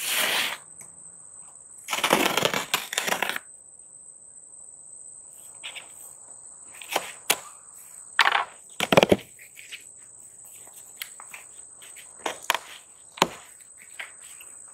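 A cardboard box being cut open with scissors and its flaps pulled apart: a scratchy run of cutting and scraping about two seconds in, then scattered cardboard clicks, rustles and knocks. A steady high insect trill runs underneath throughout.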